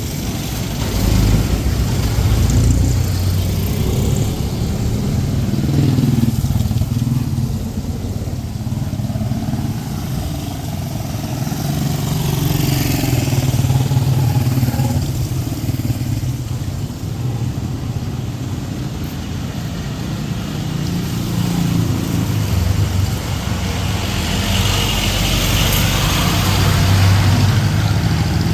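Street traffic: motorcycle and car engines running and passing close by, their pitch rising and falling, over a steady hiss of rain.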